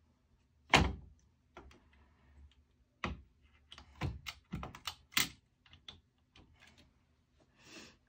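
Server hardware being handled and fitted inside the chassis: about ten irregular knocks and clicks, the loudest about a second in.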